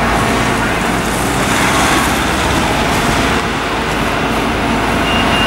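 Bronto Skylift F32 RL aerial ladder platform's truck engine running steadily with a low rumble, powering the raised boom. A rapid high beeping starts near the end.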